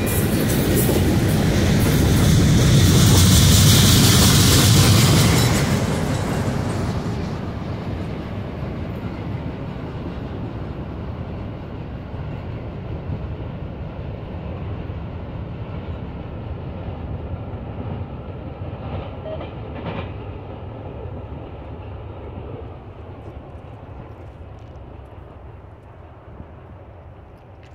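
Tail end of a Norfolk Southern freight train passing close by, its wheels clattering over the rail joints. It is loudest for the first five or six seconds, then fades steadily as the train rolls away.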